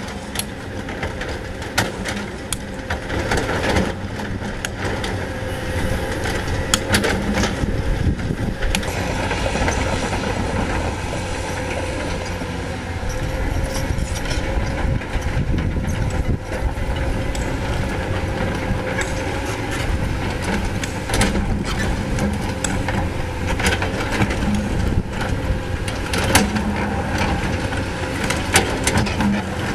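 CAT 320D hydraulic excavator's diesel engine running steadily under digging load, with a constant drone. Irregular sharp knocks and scrapes of the bucket and rock are heard over it as it digs into breccia stone.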